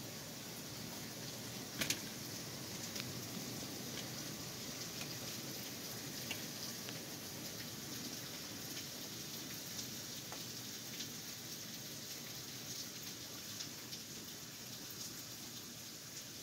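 Steady rain falling, heard as an even hiss with scattered small ticks of drops; a sharper click comes about two seconds in.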